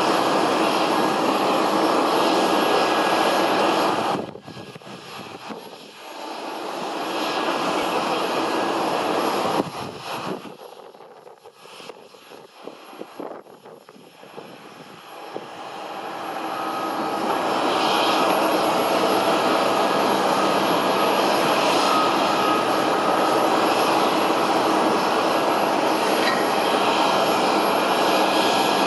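Airliner engine noise, a loud, even roar. It drops off abruptly about four seconds in and again near ten seconds, then builds back up from about fifteen seconds and stays loud.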